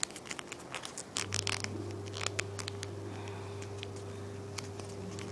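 Folded paper crinkling and crackling between the fingers as the paper strip is tucked into a triangle pocket, a quick run of small crackles in the first couple of seconds, then sparser. A low steady hum starts about a second in.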